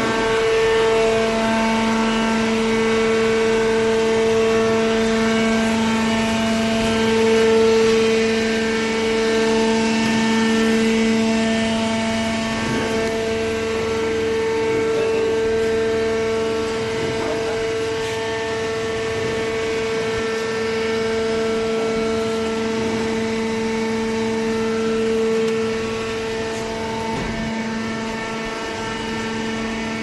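Hydraulic cardboard baler's electric motor and hydraulic pump running, a steady pitched drone that eases slightly near the end.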